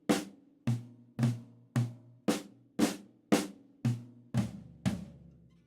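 Drum kit played slowly, about two evenly spaced strokes a second, each ringing out, with the pitch shifting as the strokes move between the snare and toms. This is a flam rudiment, the Swiss Army triplet, orchestrated around the kit and led with the left hand. The last stroke rings out about five seconds in.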